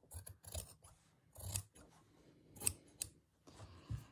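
Large dressmaker's shears cutting through layered, loosely woven fabric: a handful of quiet snips a second or so apart.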